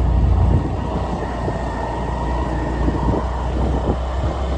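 Motor scooter riding along a rough, potholed dirt road, its engine running steadily under a low rumble. Irregular small knocks and rattles come from the bumpy surface.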